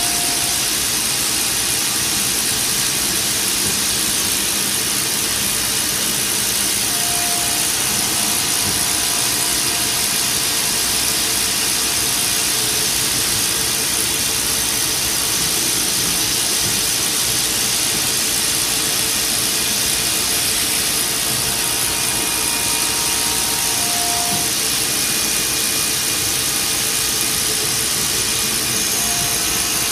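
CNC milling machine's spindle running with an end mill cutting linen phenolic: a steady machining noise, heavy in the high end, with a few brief faint whistles over it.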